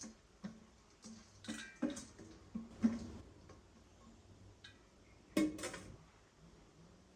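Irregular light knocks and clicks, about a dozen spread over several seconds, with the loudest knock about five and a half seconds in.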